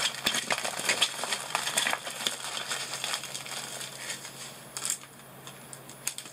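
Diamond painting canvas and its plastic cover being handled and rolled, crinkling and rustling in quick irregular crackles that thin out near the end, with one last louder crinkle.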